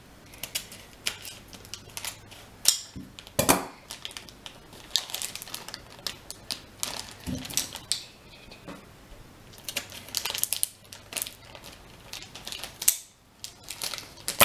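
Plastic blind bag of K'Nex pieces being handled and opened: irregular crinkling crackles and small clicks, the loudest a few seconds in.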